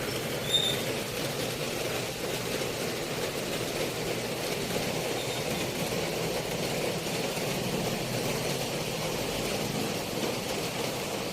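Steady mechanical running noise, even and unbroken, without a clear rhythm.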